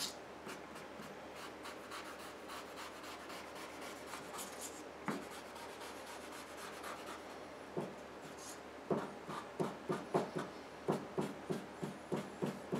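Sharpie marker scratching along the edge of a paper template onto sheet metal. Soft rubbing strokes in the first half turn into quick, regular back-and-forth dabs, about three a second, from about nine seconds in.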